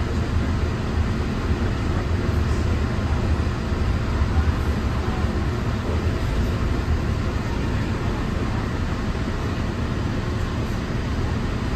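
Cabin noise of a Bombardier monorail train running along its beam: a steady low rumble with an even hiss above it.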